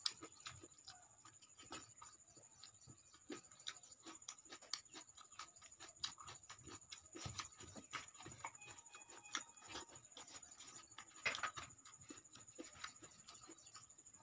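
Faint eating sounds: fingers mixing dal and rice on a steel plate and chewing, heard as a run of soft irregular clicks, with a slightly louder cluster about eleven seconds in.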